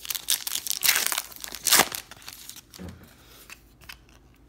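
A 2018 Bowman baseball card pack's crimped wrapper torn open and crinkled by hand, loudest in the first two seconds, then a few light rustles as the cards come out.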